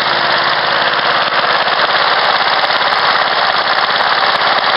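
Honda single-cylinder four-stroke lawnmower engine running steadily, a rapid, even beat of firing strokes heard close up.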